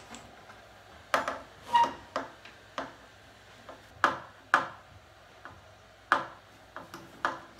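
Wooden buffet drawers being pulled out and handled: a string of about ten hard wooden knocks and clunks, unevenly spaced.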